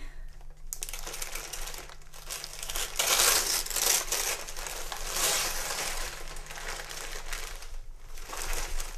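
Gift wrapping crinkling and rustling as a present is unwrapped, loudest about three seconds in. The rustling pauses briefly near the end, then starts again.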